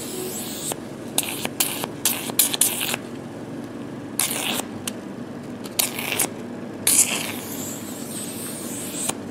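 Hydrafacial machine's suction pump running steadily while its water-dermabrasion tip is worked over the skin, with short hissing, slurping bursts as the tip draws in air and water, several in quick succession near the start, then a few spaced ones.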